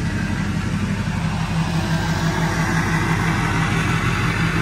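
Straight-piped LBZ Duramax 6.6-litre V8 turbodiesel in a 2007 Chevrolet Silverado 2500HD idling steadily.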